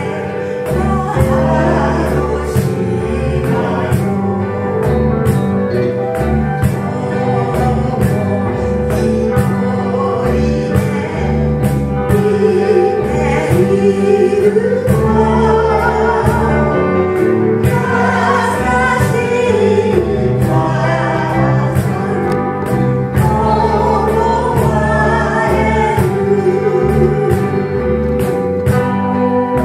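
Live band with electric guitars, bass, cajón and keyboard playing a gentle Japanese song, with a steady beat under the melody, while a woman sings and a group of voices sings along.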